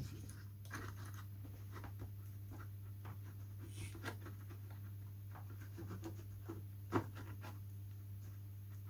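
Faint scratching and small ticks of a heated blade being pressed and drawn over Oratex fabric covering on a balsa wing, with one sharper tap about seven seconds in, over a steady low hum.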